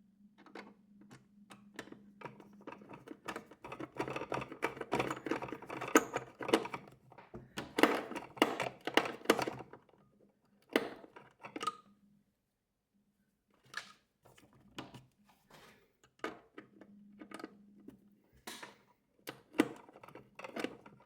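Rapid clicks, taps and knocks of hard plastic and metal as a screw is driven by hand into the refrigerator icemaker's mounting. The clicking is busiest in the first half, with a faint low hum coming and going underneath.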